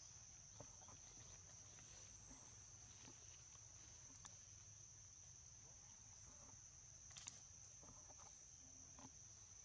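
Faint, steady high-pitched drone of insects, such as crickets or cicadas, with a few faint ticks scattered through it.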